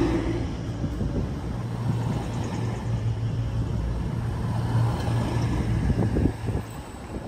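Class 220/221 Voyager diesel multiple unit's underfloor diesel engines running, a steady low drone that slowly fades, with a few short knocks near the end.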